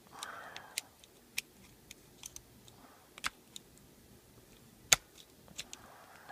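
Irregular sharp metal clicks and taps, about a dozen, the loudest near five seconds in: a Leatherman Wave stainless-steel multitool being worked at to pry a stubborn hidden part out of its saw compartment.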